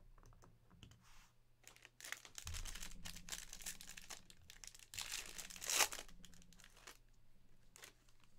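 Foil trading-card pack wrapper crinkling as it is handled and torn open. The crackling starts about two seconds in and is loudest near the middle, after a few faint clicks.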